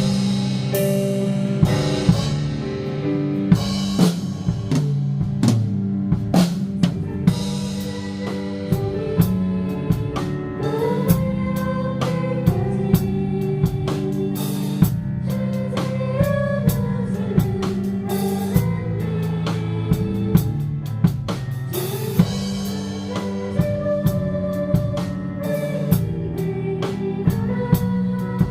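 A band playing a praise song: a drum kit with snare and bass drum keeps a steady beat over sustained chords and a moving melody line.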